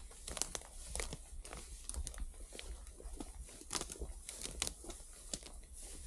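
Close, irregular rustling and crackling, with sharp cracks scattered throughout and no steady rhythm.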